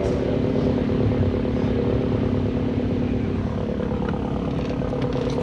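A car engine idling steadily, holding an even, unchanging hum.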